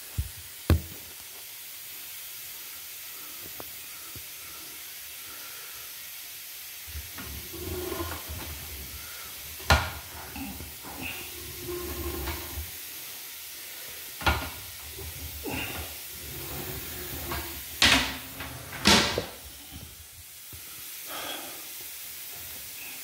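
Steady hiss with scattered sharp knocks and low rattling from a sewer inspection camera rig being worked, its push cable fed along the line.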